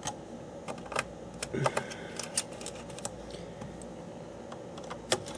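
Small screws and plastic laptop parts being handled in an opened laptop chassis: light, irregular clicks and taps, a small cluster of them about halfway through.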